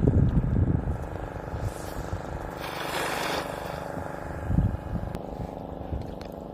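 Small engine running steadily, with heavy low rumbling in the first second and a brief rush of noise about three seconds in.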